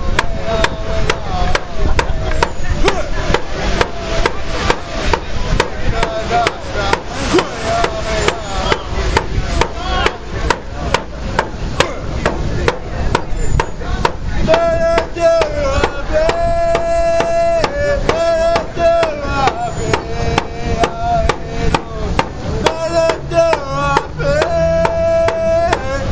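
A man singing a Native song in a high, strong voice over a steady, even beat on a hand-held frame drum. He holds long high notes about halfway through and again near the end.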